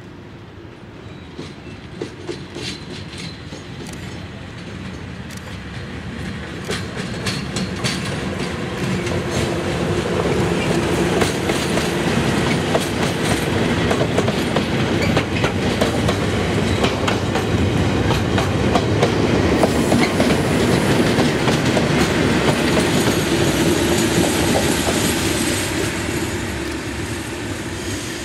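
Network Rail Rail Head Treatment Train passing close by: its tank wagons rumble and clatter over rail joints and points with many sharp clicks. It builds up over the first ten seconds, runs loudest through the middle, and eases off near the end as the Class 97 diesel locomotive at the rear comes up.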